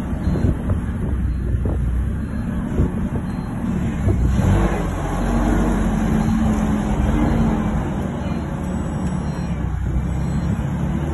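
Engine of a JCB TLT30G LPG-fuelled telescopic forklift running while the truck drives. The engine note rises about four seconds in, holds steady for a couple of seconds, then eases back.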